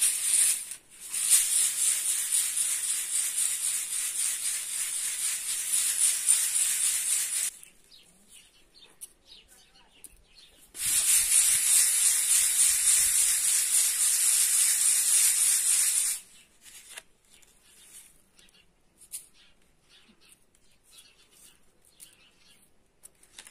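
Wheat grain swishing and rattling in a round wooden-rimmed sieve as it is swirled by hand, a steady high rush that gathers the chaff and husks into the middle. It runs for about seven seconds, stops, starts again for about five seconds, then gives way to a few faint taps.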